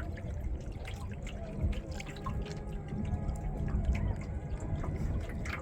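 Water dripping and trickling off a kayak paddle, many small scattered drips and splashes over a low rumble.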